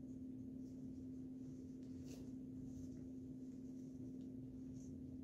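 Quiet room with a steady low hum, and faint, soft rustling of a dress's fabric being handled now and then, most noticeably about two seconds in and near the end.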